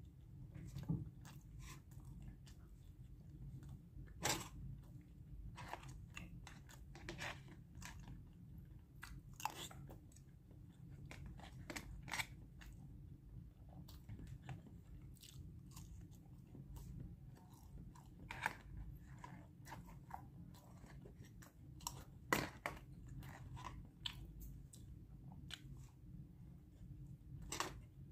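A man biting and chewing food, bread among it, with irregular small crunches and clicks over a low steady room hum.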